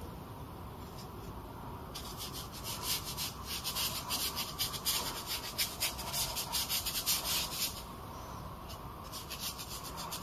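Chinese ink brush with splayed hairs rubbed and scrubbed across paper in a quick run of short scratchy strokes, pressing dark ink into a painted rock with the dry-brush technique. The strokes start about two seconds in, pause briefly, and resume near the end.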